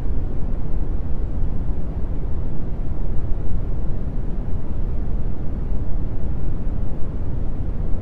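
Steady synthetic brown noise: a deep, even rumbling hiss, strongest in the bass and fading towards the treble, unchanging throughout.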